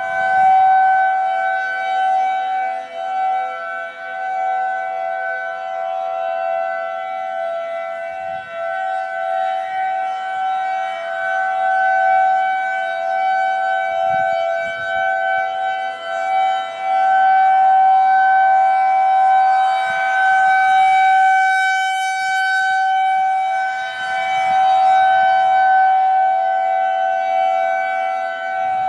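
Federal Signal 2001-SRN electronic outdoor warning siren sounding the alert signal: one steady, unwavering tone whose loudness slowly swells and fades.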